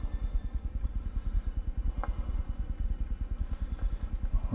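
Steady low rumble that flutters rapidly, with a faint click about two seconds in.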